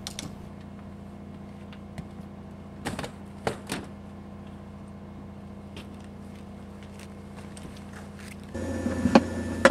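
A few sharp knocks and clicks over a steady low hum as a person in a simulated spacesuit climbs out through the airlock door and steps down the stairs. About 8.5 seconds in, a louder mix of noise comes in suddenly.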